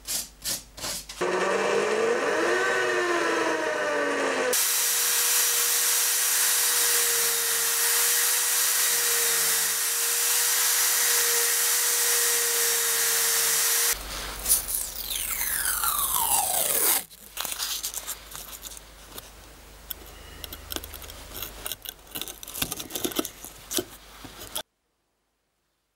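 Brief sandpaper rubbing on a wooden knife handle, then an electric drill fitted with a polishing wheel spins up with a rising whine and runs steadily while the wheel polishes the metal bolster of a folding pruning knife. About fourteen seconds in it winds down with a falling whine, followed by light scattered clicks of handling.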